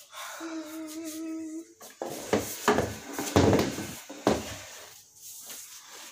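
A short steady hummed tone lasting about a second, then a few seconds of close rustling, clattering and knocks as clothes and household things are handled and moved next to the phone.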